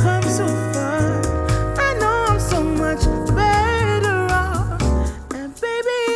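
A pop song played back through studio headphones and recorded by microphones on them. A bass line and drums sit under a melody whose pitch wavers, and the bass drops out near the end.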